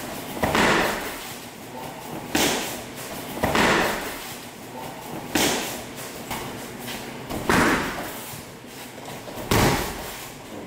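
A series of about six heavy thuds at irregular intervals of one to two seconds, each followed by a short noisy tail.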